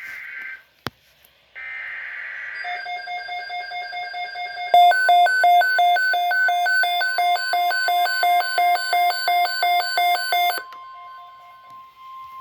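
NOAA Weather Radio emergency alert for a severe thunderstorm watch. It opens with screeching digital header bursts. A pulsing electronic alarm beep follows, loudest and most rapid from about five seconds in, about two to three beeps a second. It gives way near the end to a steady single warning tone.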